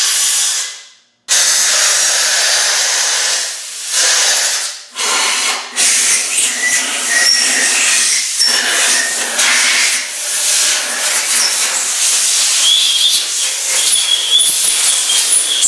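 Compressed-air blowgun blasting through the oil ways and bolt holes of a 200Tdi engine block: a loud rushing hiss in several long blasts with short breaks, with thin whistling tones that come and go, strongest near the end.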